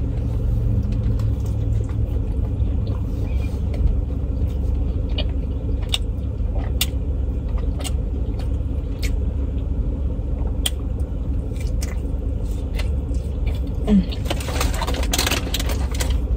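Car engine idling, a steady low rumble heard from inside the cabin, with scattered light clicks and a short rustle near the end.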